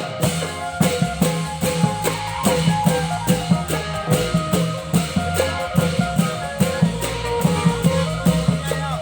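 Thai klong yao long-drum ensemble playing a rhythmic piece: regular drum and cymbal strikes over a steady bass and a melody line.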